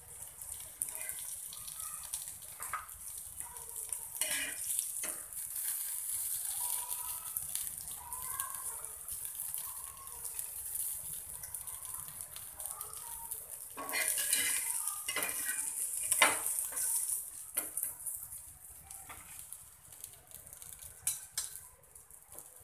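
Surmai (kingfish) slices sizzling in oil on a flat tawa, with a utensil knocking and scraping on the pan as the fried pieces are lifted off. The sizzle thins out near the end once the pan is nearly empty.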